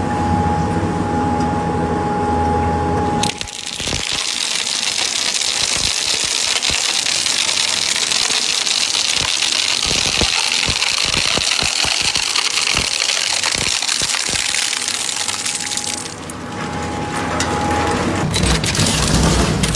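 Twin-shaft shredder running empty with a steady hum and whine. About three seconds in, a flat sheet is caught by the rotating cutter blades and torn up with a dense crackling hiss and a stream of sharp snaps. Near the end the machine runs empty again with the same hum and whine.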